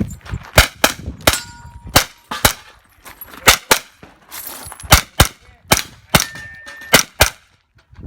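Pistol shots fired in quick pairs and short strings, about fourteen in all, with steel targets clanging and ringing briefly after some of the hits.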